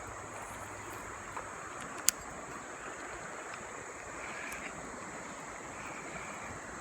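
River water running steadily over a shallow rocky bed, with one sharp click about two seconds in.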